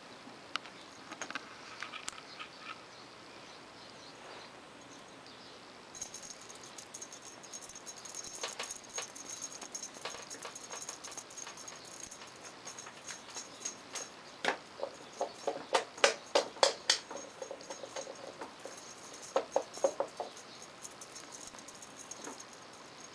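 Young kittens play-fighting in a padded fabric cat bed: soft rustling and pattering of paws and claws on the cloth. There are quick runs of loud ticks, about four a second, around two-thirds of the way through and again a few seconds later.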